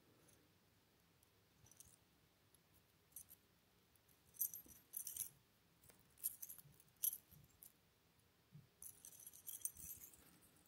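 Faint, scattered light clicks and small metallic jingles of a bladed jig (chatterbait) being handled in the fingers, its blade and hook clinking, with quiet room tone between.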